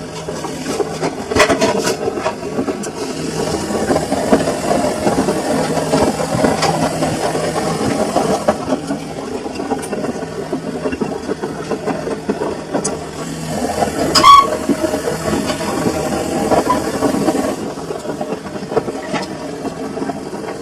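Samsung washing machine running with a full load: the drum turning and churning the wet laundry, with occasional small clicks and a short ringing clink about fourteen seconds in.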